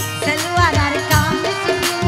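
Live vandari folk song accompaniment: a harmonium holds chords under quick tabla strokes.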